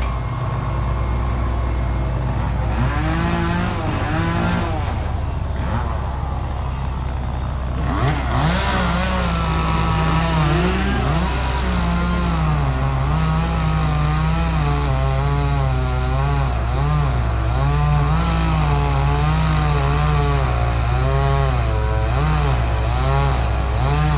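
Chainsaw running under a cutting load, its engine note rising and falling over and over as it bogs and recovers, with a steady low engine drone underneath. The saw gets louder and busier about eight seconds in.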